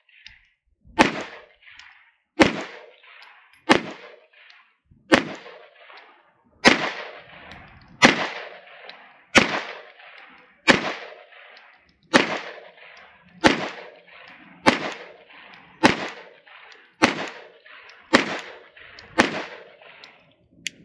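A Shadow Systems DR920 9mm pistol firing about fifteen single shots at a steady, slow pace, roughly one every 1.3 seconds. Each shot is followed by a short echo.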